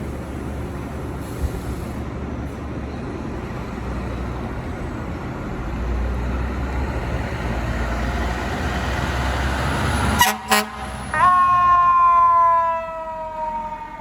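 An FDNY ladder truck approaching, its engine rumble growing louder. About ten seconds in come short loud air-horn blasts, then a long siren tone that slowly falls in pitch and fades as the truck goes by.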